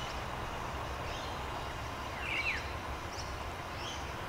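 Outdoor nature ambience: a steady hiss of background noise, with a few short, falling bird chirps about two seconds in and fainter ones a second later.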